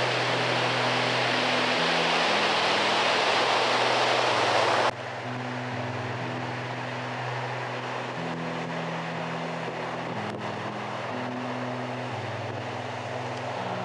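Heavy Atlantic surf breaking and washing on the beach, loud at first, then cutting suddenly to a quieter wash of waves about five seconds in. A slow, low music drone plays underneath, changing note every second or two.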